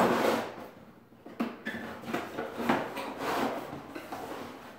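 Rummaging in the cardboard box of a barbecue rack set, pulling at the packed parts: a loud scrape and rustle at the start, then softer rustles and small knocks that die away.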